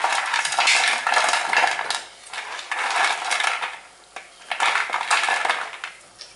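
Fried little-millet rice-finger snacks rattling and clattering against a plastic plate as a hand stirs, scoops and drops them, in three bursts of dense clicking with short pauses between.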